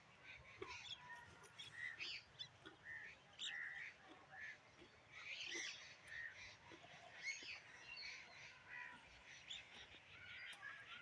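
Birds calling: a steady scatter of short, faint calls and chirps overlapping each other.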